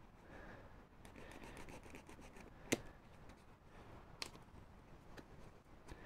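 Craft knife cutting and scoring EVA foam: faint scraping strokes of the blade through the foam, with a few sharp clicks, the loudest a little under three seconds in.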